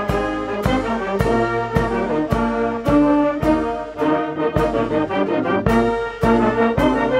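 Brass band music with many held notes over a drum struck steadily about twice a second.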